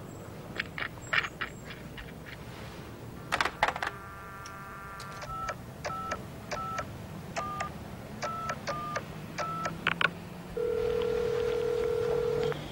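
Push-button telephone: handling clicks as the receiver is picked up, then a string of short touch-tone beeps as a number is dialled, with a click at each key press. Near the end comes one steady ringing tone in the earpiece, about two seconds long, as the call goes through.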